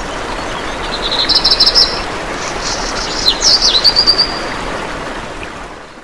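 Small birds chirping in quick high trills over a steady rushing background noise. The sound fades in at the start and fades out near the end.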